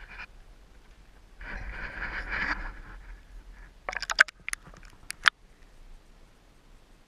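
Lake water splashing and rushing over a camera's microphone as it is lowered from a boat into the water, with a quick run of sharp crackles and pops as it goes under; the sound then suddenly drops to a faint hiss.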